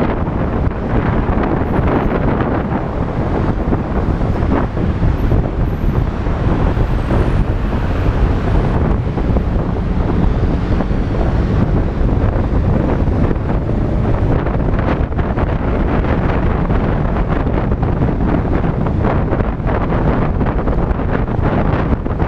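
Wind buffeting the camera's microphone on a moving Yamaha Tricity scooter: a loud, steady rushing, mixed with the scooter's road noise.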